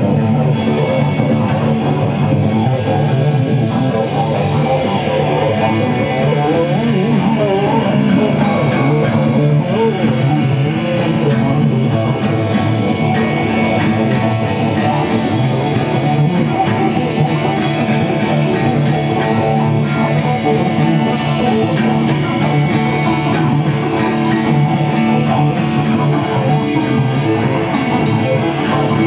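An electric guitar and an acoustic guitar playing an instrumental passage together, the acoustic strummed, with no singing.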